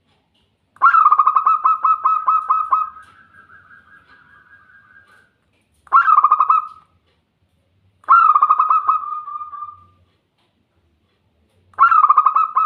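Zebra dove (perkutut) singing: four phrases of rapid, pulsing coos with pauses between them. The first phrase is the longest and trails off softly, and the last starts near the end.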